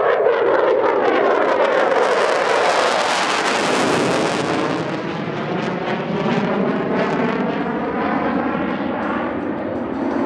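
Saab JAS 39 Gripen's Volvo RM12 jet engine running loud as the fighter passes, swelling to its peak about three seconds in and then slowly easing, with a sweeping, phasing whoosh.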